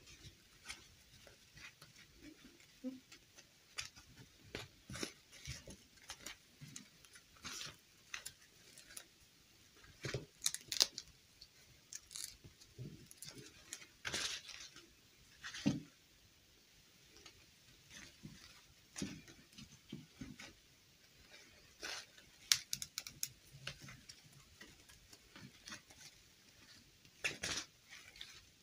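Soft, irregular rustling of a doll's satin dress and light clicks of the plastic doll's limbs as hands pull the dress onto a fashion doll.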